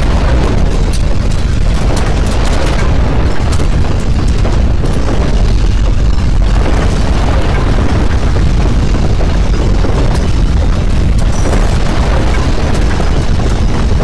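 Earthquake rumble: a loud, continuous deep roar with crackles and rattles over it.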